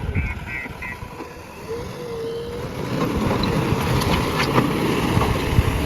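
A JCB backhoe loader's diesel engine running under work. A rapid high beeping stops about a second in, and from about three seconds the machine grows louder and rougher, with scattered knocks.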